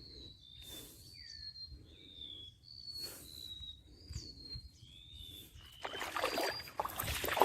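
A wild bird calling in a run of short, high whistled notes, some sliding down in pitch, repeated about every half second to a second. About six seconds in, a louder crackling rustle starts.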